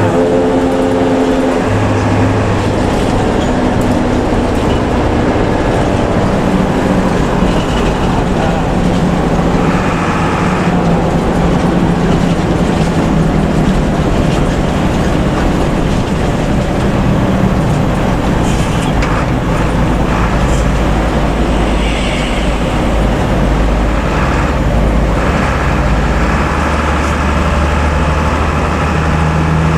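Heavy bus engine and road noise at highway speed, a steady loud drone whose low engine note shifts in pitch now and then, with a deeper rumble swelling in the second half.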